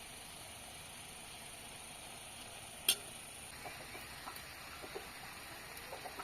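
Faint, short chicken clucks starting a little past halfway, over a steady hiss, with one sharp click just before them.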